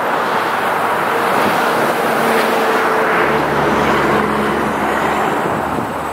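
A steady rushing noise with faint low humming tones underneath.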